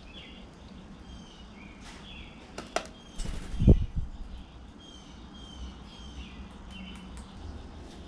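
Blue jay flying off a feeder dish: a few sharp clicks, then a burst of wingbeats with a low thump about three and a half seconds in. Small birds chirp in the background throughout.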